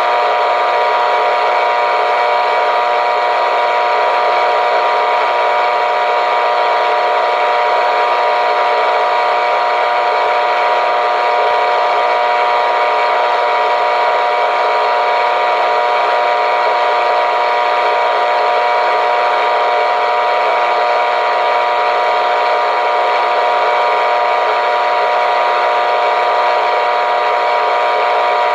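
Clock radio alarm going off as a steady hiss of radio static, untuned, with a few steady whining tones running through it. It goes on unchanged, with no beeping rhythm.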